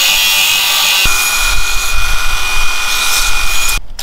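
Cordless angle grinder with a cutoff wheel cutting through a metal rod held in a bench vise, a loud high-pitched grinding whine. The tone changes about a second in, and the grinder stops abruptly near the end.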